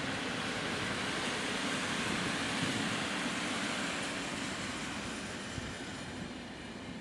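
PKP Intercity passenger coaches rolling past at speed: a steady rush of wheels on rail, easing slightly over the last couple of seconds.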